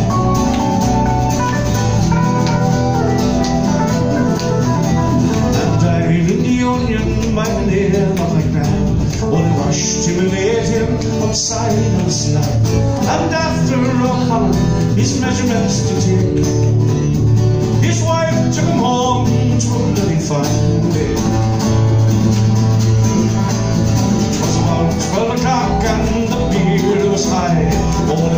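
Live acoustic folk band playing: strummed acoustic guitars with a whistle carrying the melody line.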